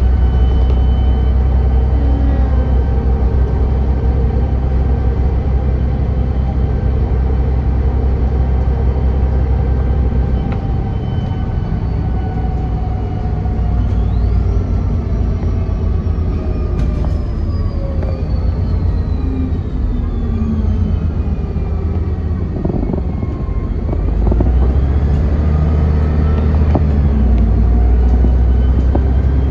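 City bus driving, heard from inside the passenger cabin: a steady low engine and drivetrain rumble with whining tones that slide down in pitch through the middle. The rumble eases in the middle and builds again a few seconds before the end.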